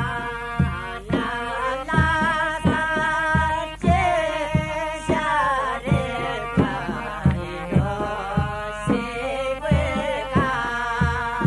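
Folk music: a wavering, sustained melody over a steady drum beat.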